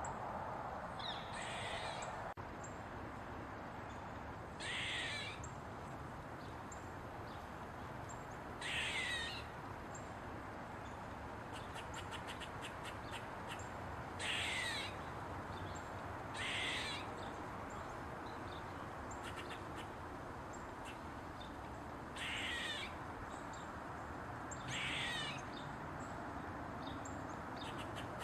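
Eastern gray squirrel giving a series of harsh, barking calls, about seven in all, each under a second and falling in pitch, spaced a few seconds apart.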